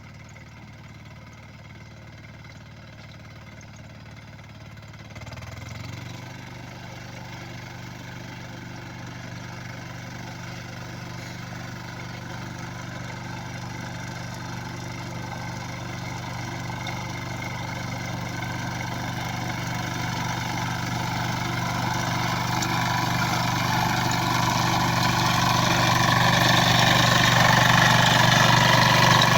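Bertolini BT 141 diesel walk-behind mower's engine running steadily. About five seconds in it steps up, then grows steadily louder, with more clatter and hiss toward the end.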